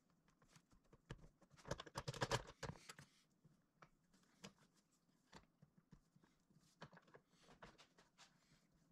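Faint clicks and light knocks of hands working metal-and-plastic bar clamps against a glued-up wooden end grain cutting board, with a denser run of clicks about two seconds in.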